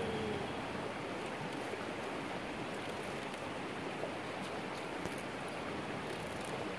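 Steady rushing of flowing river water, with a few faint crisp clicks of a knife slicing through a leek into a wooden bowl.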